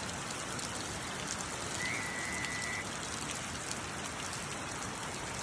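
Heavy rain pouring down in a steady downpour. A brief, faint high steady tone sounds for about a second, about two seconds in.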